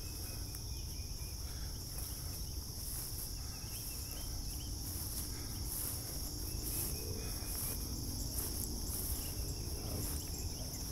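A chorus of crickets and other insects: a steady high trill, with a pulsing buzz above it about twice a second, over a low rumble.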